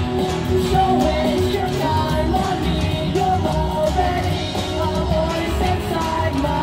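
Rock-style music with a woman's voice singing over it.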